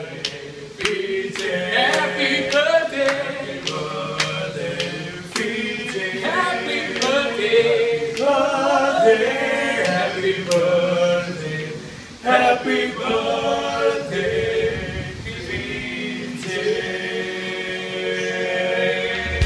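A small group of young male voices singing together a cappella in harmony. Sharp clicks keep a beat through the first few seconds.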